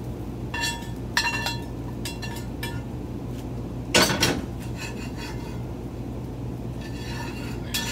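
A frying pan and plate clinking and scraping on a gas stovetop, with one louder clank about four seconds in, over a steady low hum.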